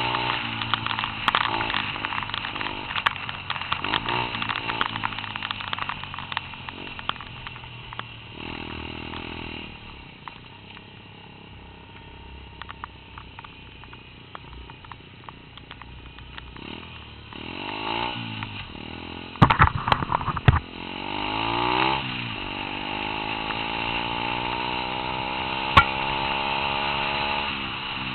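Small 88cc four-stroke pit bike engine being ridden, revving up and dropping back again and again. It eases off to a low, quieter running in the middle and climbs steadily in pitch near the end before the throttle is shut. A cluster of loud knocks comes about two-thirds of the way through.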